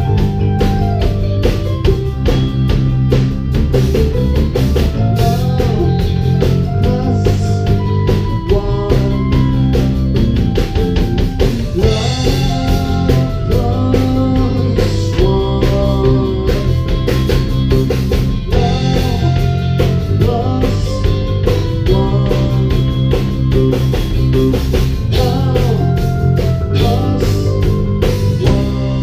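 Live rock band playing an instrumental passage: drum kit, electric guitar and bass guitar, with a melody line over a steady beat.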